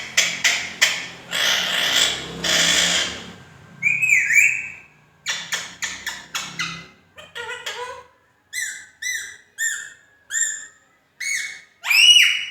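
Pet parrot calling: a few sharp clicks, a harsh squawk, and a single whistled note that dips and rises. In the second half comes a run of short, arched whistled calls, about two a second, growing louder near the end.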